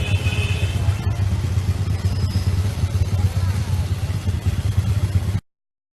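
Loud, steady low rumble with a few scattered clicks and rattles, cutting off abruptly a little over five seconds in.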